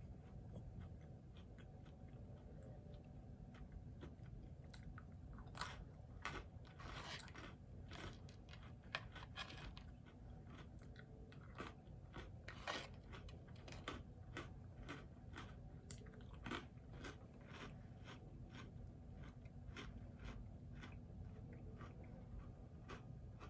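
A person crunching and chewing small hard pretzel twists: many short, crisp crunches spread irregularly through, heard quietly.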